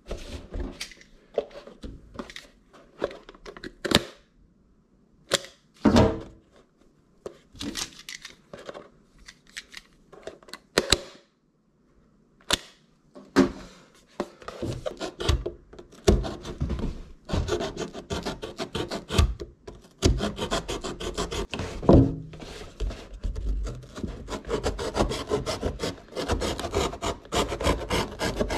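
Paper milk carton being handled on newspaper with scattered taps and rustles, then cut with a hand-held blade: from about halfway through, a quick, steady run of scraping, sawing strokes through the cardboard, several a second.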